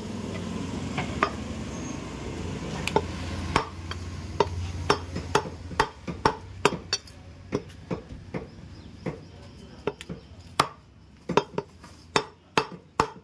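Butcher's cleaver chopping mutton on a chopping block: a long run of sharp chops, about two to three a second, with a low steady hum under the first half.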